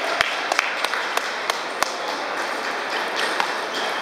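Table tennis balls clicking: about six sharp ping-pong hits and bounces, roughly three a second, over the first two seconds, then a steady hum of a large busy hall.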